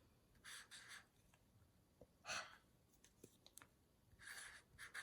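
Near silence: room tone with a few faint, short scratchy sounds.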